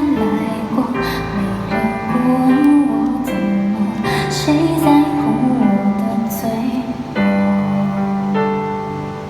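A woman singing a slow pop ballad live with piano and guitar accompaniment; the vocal line ends about two thirds of the way through and the accompaniment carries on alone.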